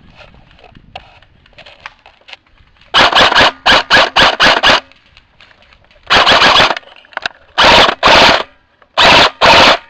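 Airsoft rifle firing loud bursts on full auto close to the microphone: a quick string of about six short bursts a few seconds in, then four longer bursts spaced about a second apart.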